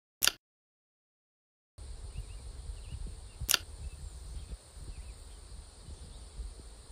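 Rural morning ambience on a lawn: faint bird chirps and a steady high insect drone over low wind rumble on the microphone. It comes in after a short click and a second of silence, with another sharp click about halfway through.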